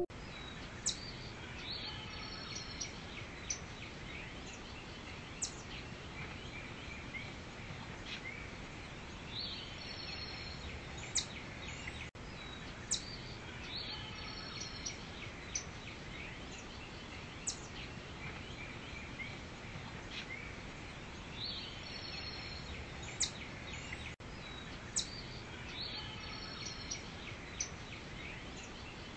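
Forest ambience: birds chirping and whistling in short calls over a steady background hiss, the same stretch repeating about every twelve seconds.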